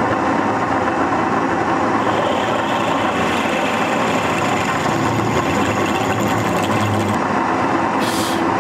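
Myford Rodney milling machine running steadily with a drill in its spindle, drilling a blind hole in a vice clamp; the owner reports slipping from its original drive belt. A short hiss comes near the end.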